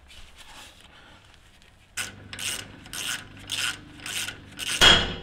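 Hand socket ratchet being worked back and forth on a tie-rod-end nut, clicking in strokes about two a second. Near the end a loud hammer strike on steel rings out.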